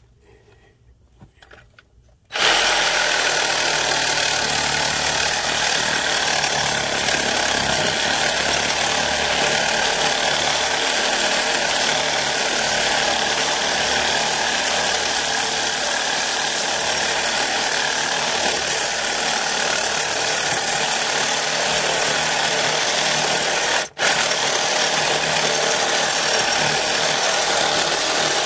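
Reciprocating saw with a new carbide-tooth blade cutting through cast iron pipe. It starts about two seconds in and runs loud and steady, stopping for an instant near the end before carrying on.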